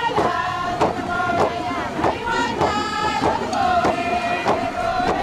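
Music: a group of voices chanting in unison, holding long notes over a steady drumbeat.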